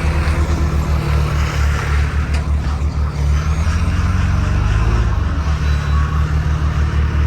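Diesel semi-truck engine idling with a steady low throb, briefly rising in speed and settling back around the middle.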